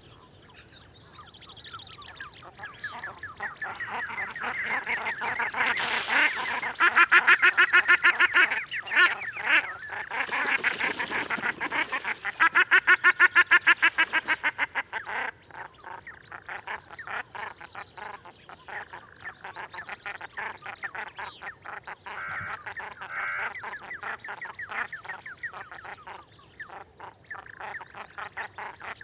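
Common shelduck calling in fast series of repeated notes, several a second. The calls swell into two loud runs, about a quarter and about half way through, then go on more faintly.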